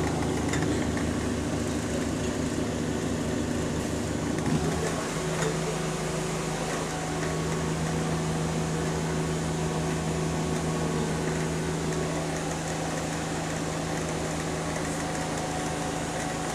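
A bus engine and drivetrain running, heard from inside the bus, with a steady low hum; about five seconds in the low rumble changes to a smoother, steadier note.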